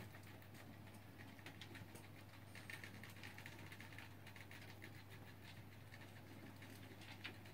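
Near silence: room tone with a faint steady low hum and scattered faint light clicks.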